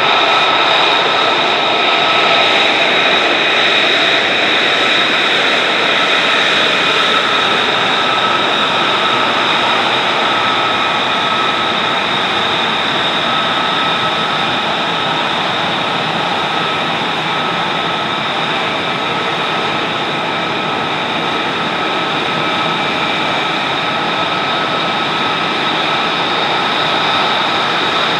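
F-35 Lightning II's F135 turbofan jet engine running steadily on the ground at low power, a loud even rush of noise with a steady high whine over it; the engine is kept running for hot-pit refuelling.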